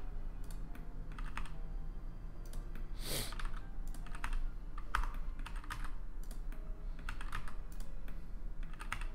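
Computer keyboard keystrokes in short, scattered clusters, with a brief hiss about three seconds in and a faint steady low hum underneath.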